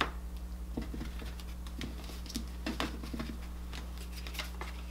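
A tarot deck being shuffled and handled: a run of soft, irregular card clicks and flicks as the cards are spread and gathered, over a steady low electrical hum.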